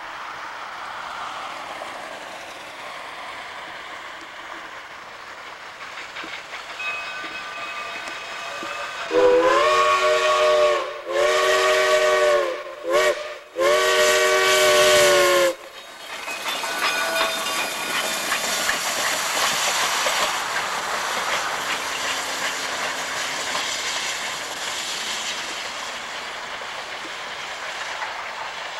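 Durango & Silverton K-28 2-8-2 steam locomotive #473 running light, hissing steam as it approaches. About nine seconds in, its chime whistle sounds long, long, short, long: the grade-crossing signal. Then the rushing and rattling of the engine passes and pulls away.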